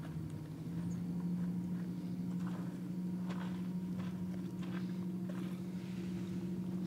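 Faint taps and scrapes of kindling sticks and a piece of fatwood being handled and set in a fire pit, over a steady low hum.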